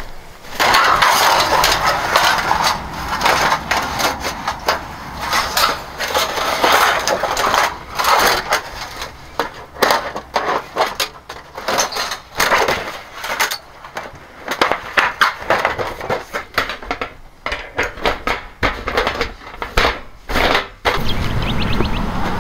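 Irregular crunching, cracking and knocking, like wood or camp gear being handled and broken; near the end it gives way to a steady low rumble.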